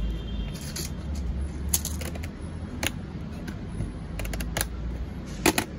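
Scattered clicks and light taps of packets, boxes and plastic bags of tablets being handled on a glass shop counter, over a steady low background hum.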